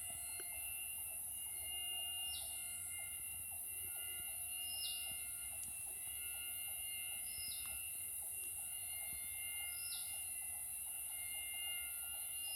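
Tropical jungle insects droning: a steady, very high-pitched whine that sounds like someone drilling through solid steel, over several lower steady tones. A short falling call repeats about every two and a half seconds.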